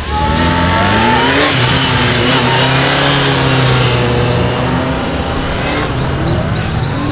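Police motorcycle engine revving through a tight technical course: the pitch climbs about a second in, holds high for a couple of seconds, drops as the bike slows, then rises again near the end.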